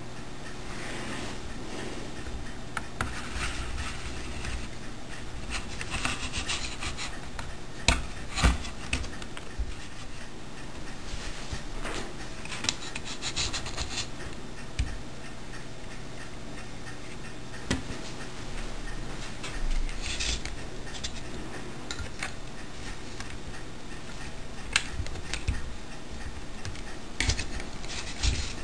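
Hands handling and turning a homemade hard-drive clock device on a table: rubbing and scraping on its casing with a few sharp knocks, over a steady low hum.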